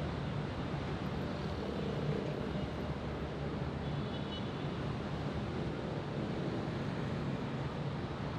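Steady downtown road traffic: a continuous rumble of engines and tyre noise with a low hum underneath. A faint high tone sounds briefly about four seconds in.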